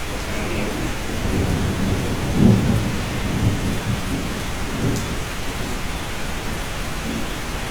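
Steady rain with a low roll of thunder that swells about a second in, is loudest about two and a half seconds in, and dies away after about six seconds.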